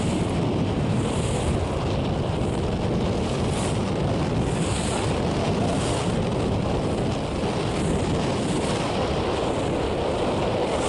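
Steady wind buffeting the microphone, with the wash of sea water underneath.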